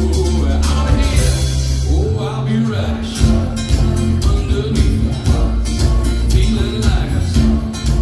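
Live band playing a country-style song: a male singer with acoustic guitars over bass and a steady drum beat.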